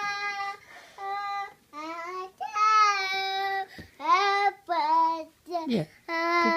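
A small girl singing in a high voice: a string of short held notes, some sliding in pitch, with brief breaks between phrases.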